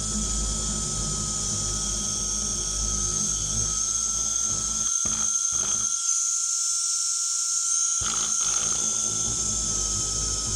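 Electric hand drill running steadily with a high whine, boring a hole in a wooden plank. Its low rumble drops away for about two seconds a little past the middle while the whine carries on.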